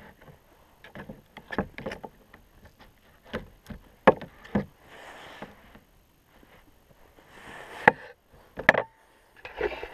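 Steel knife and fork clicking and scraping against a plastic cutting board while a thick grilled steak is cut, in a scatter of sharp clicks with short scrapes between them.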